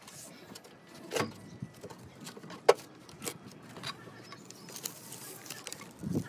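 Self-adhesive roofing tape being handled, its paper backing peeled off and the tape pressed down onto underlay and metal flashing: scattered crackles and rustles with a sharp click about two and a half seconds in.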